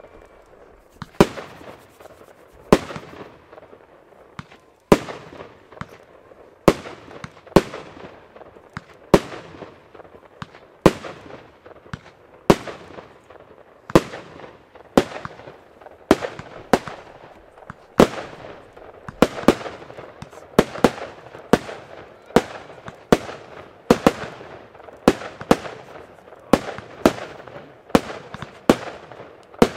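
142-shot consumer compound firework cake firing: a long series of sharp bangs from shots launching and bursting overhead, each trailing off in an echo. About one bang a second at first, quickening to about two a second from around two-thirds of the way through.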